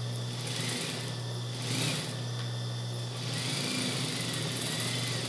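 Industrial sewing machine running: its motor hums steadily while the needle stitches short runs as the fabric is fed under the foot.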